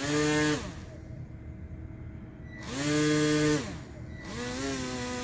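Electric motor and propeller of an Aquacraft Mini Alligator Tours RC airboat revving in two short bursts, each a whine that rises quickly, holds and falls away. From about four seconds in, the motor runs steadily at a lower, slightly wavering pitch.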